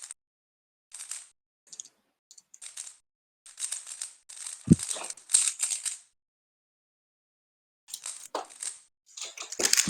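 Plastic 3x3 speedcube being turned quickly: flurries of light clicking and rattling with short gaps, and a denser run near the end. A short low sound comes about halfway through.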